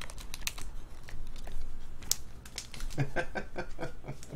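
Trading cards being handled on a table: a quick string of light clicks and rustles as cards are slid and flipped. A short murmur of voice comes about three seconds in.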